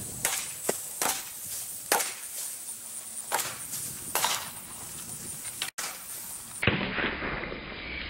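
A quick series of sharp cracks as pellets from a Crosman 760 Pumpmaster air rifle strike full soda cans and knock them off a board. Near the end the sound turns dull and muffled.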